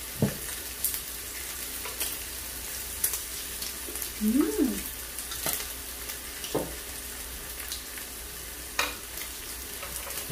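Bacon and other meat sizzling and spitting on a tabletop grill plate, a steady frying hiss with frequent sharp fat pops. A short rising-and-falling tone sounds about four seconds in.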